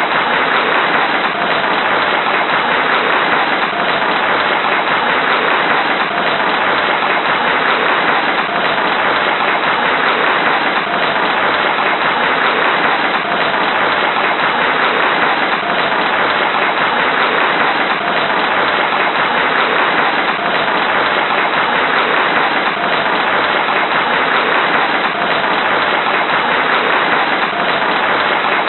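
Large audience applauding steadily, a dense unbroken wash of many hands clapping.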